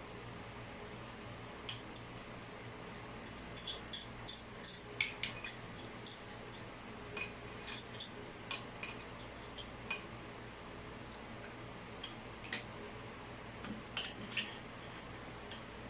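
Irregular small metallic clinks and ticks as plumbing fittings and hand tools are handled, thickest in the first half and again near the end, over a faint steady hum.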